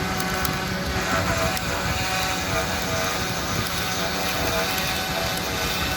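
A 52 mm CNC router spindle running steadily, with a steady whine over a rush of air as the spindle's own airflow draws dust through a 3D-printed dust shoe.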